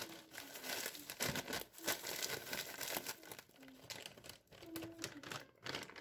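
Crinkling and rustling of something being handled, in irregular strokes with short pauses.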